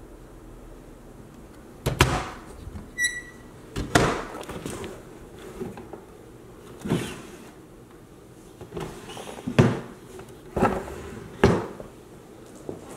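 Wooden cabinet doors and a desk drawer being handled, giving a string of sharp knocks and clunks, about seven in all, with a brief high squeak about three seconds in.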